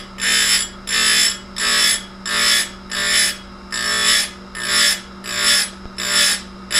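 Tecomec Jolly Evo chain grinder motor running with a steady hum while the grinding wheel is dipped onto the saw chain again and again. Each touch gives a short, loud grinding hiss, about one and a half a second, as the wheel digs into the cutter and gullet.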